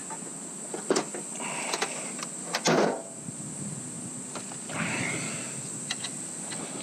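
Hand work on a motorcycle's underside: a few scattered clicks and knocks of tools and parts being handled, the loudest about two and three-quarter seconds in, over a steady high hiss.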